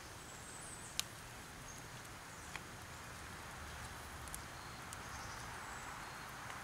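A spoon stirring black-eyed peas and cubed Spam in a metal camp pot: soft stirring sounds with a few sharp clicks.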